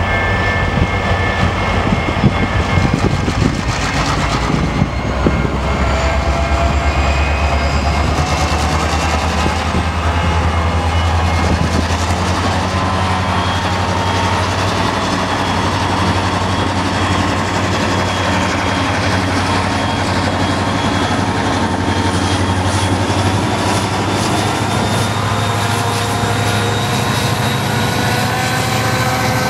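EMD diesel-electric locomotives running under power with a deep, steady engine drone and several whining tones above it that slowly rise and fall. A few sharp knocks come in the first five seconds.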